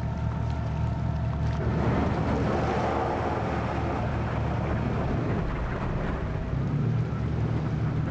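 Expedition yacht's engine droning steadily under way. From about two seconds in, ice crunches and scrapes along the hull as the bow breaks through sea ice.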